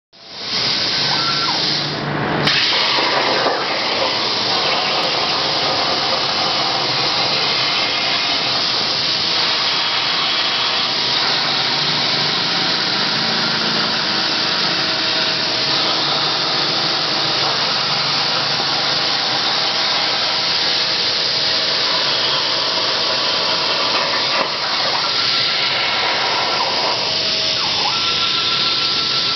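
Hypertherm plasma cutter with FineCut consumables cutting 6 mm carbon steel: a steady, loud hiss of the plasma arc and compressed air.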